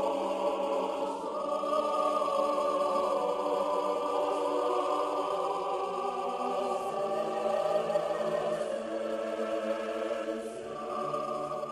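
Background music: a choir singing held chords over orchestral accompaniment, changing chord about ten seconds in.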